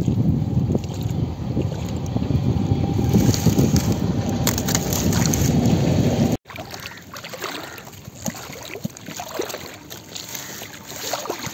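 Wind buffeting the microphone as a loud, fluttering rumble. About six seconds in it cuts off suddenly, leaving quieter outdoor water sounds with scattered small clicks and splashes.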